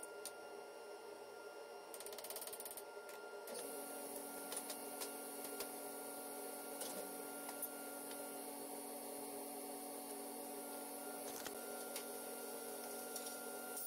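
A workshop machine's motor running steadily with a constant hum that gets louder about three and a half seconds in, with scattered clicks and taps.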